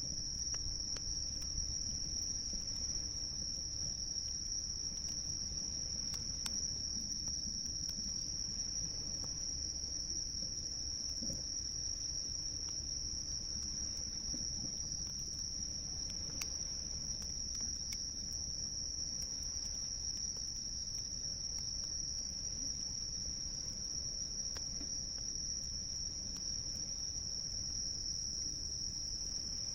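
Insects trilling in one steady, unbroken high-pitched chorus, with a few faint crackles from a campfire and a low rumble underneath.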